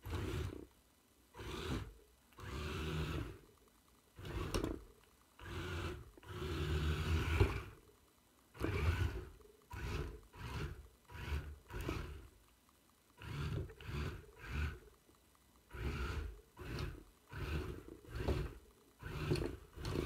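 The 2WD robot car's small yellow geared DC motors buzz in short bursts, each about half a second to a second and a half long, starting and stopping again and again as the joystick drives the car.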